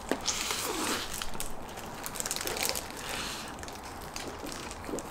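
Biting into and chewing a mouthful of crispy, sauce-glazed fried chicken wrapped in seaweed, a string of irregular crunches.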